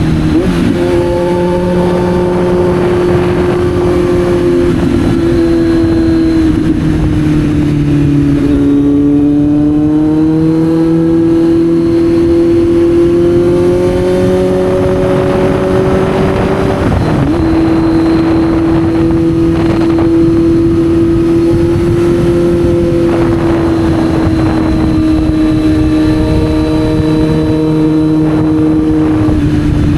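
Kawasaki Z900's inline-four engine running under load while riding. Its note sags, climbs steadily for several seconds and levels off, with short breaks in the note near the start, about halfway through and near the end. Wind rushes steadily underneath.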